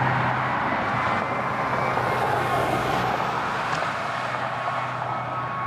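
Fire engine driving away down the road: a steady rush of engine and tyre noise.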